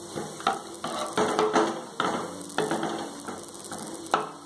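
A metal ladle knocks and scrapes against the side of a metal pot while stirring a thin tamarind curry base. There are about two knocks a second, each with a short metallic ring, and the loudest one comes near the end.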